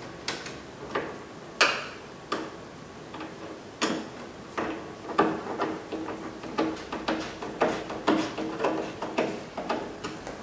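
Hand ratchet with a 10 mm socket and extension clicking in irregular runs, a few clicks a second, as it tightens the headlight assembly's mounting bolts.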